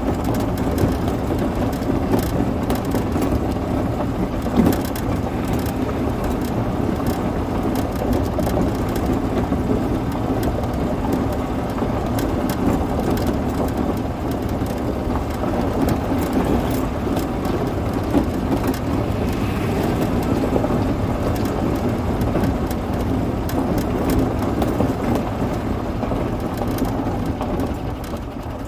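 Yamaha golf cart driving along a gravel lane: a steady running noise with the tyres crunching and crackling over loose gravel.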